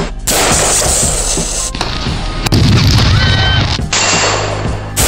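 Loud gunfire and booms under background music, chopped into short segments by abrupt cuts.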